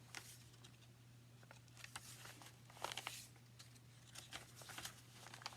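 Faint, scattered rustling and soft clicks of paper and hemp thread being handled as a journal signature is hand-sewn, the thread pulled through the holes. The strongest cluster comes about three seconds in, over a steady low hum.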